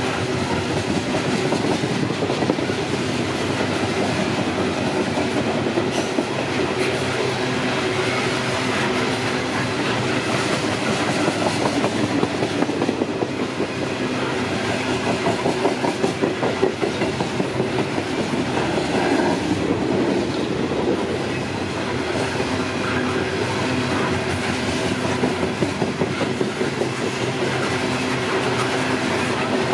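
Loaded Norfolk Southern coal cars rolling past at speed: a steady, loud rumble of steel wheels on rail, with repeated clickety-clack as the wheel sets cross rail joints.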